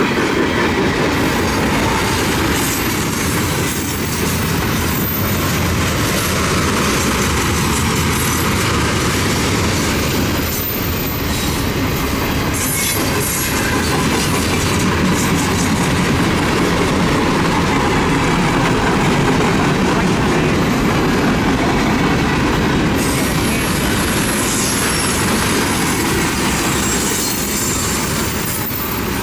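CSX freight train cars rolling past. The wheels clack over the rail joints, with a thin, high-pitched wheel squeal at times.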